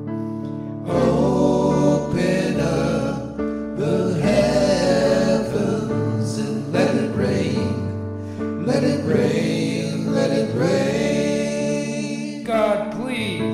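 Gospel song sung by a choir.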